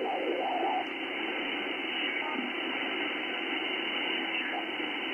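Steady hiss of HF band noise from an Icom IC-7610 receiver's speaker, filtered to a narrow voice-width passband, with a faint garbled signal about half a second in. The noise sits around S4 on the meter, a raised noise floor of the kind being troubleshot.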